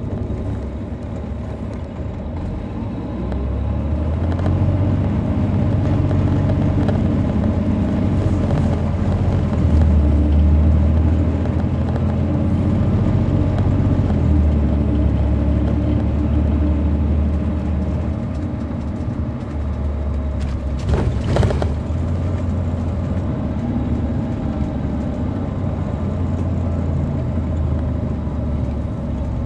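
Caterpillar C13 diesel engine of an MCI D4500CL coach, heard from inside the bus, pulling hard as it drives. The low engine note swells and eases several times, and a short sharp rattle comes about 21 seconds in.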